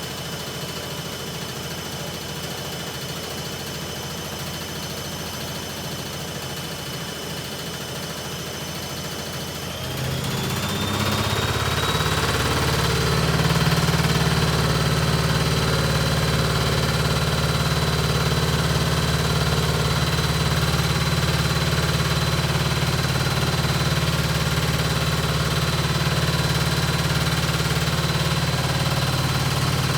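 Hoover Ecologic Computer washing machine spinning on its spin-only programme: a steady hum with a whine that rises in pitch and gets louder about a third of the way in, as the motor speeds up toward full spin, then holds steady at the higher speed.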